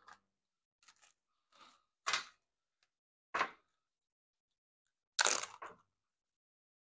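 Plastic zipper-seal food bags crinkling as they are handled and pulled open: several short crinkles, the longest and loudest about five seconds in.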